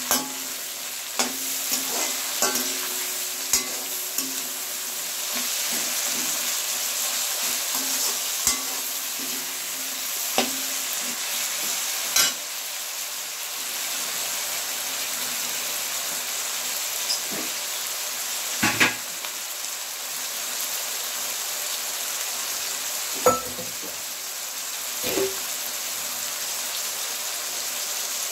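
Tomatoes and onions frying in hot oil in a pan, with a steady sizzle while they soften. Now and then a utensil stirring them knocks sharply against the pan, loudest twice in the second half.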